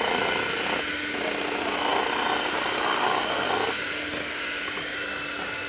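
Sonifer electric hand mixer running steadily, its twin beaters churning thick cake batter in a stainless steel bowl, with a steady motor hum.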